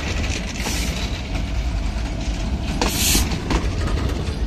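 Intercity passenger coach rolling slowly past at close range, its wheels rumbling low and steadily on the rails. Two short bursts of high hiss come about half a second in and again around three seconds in.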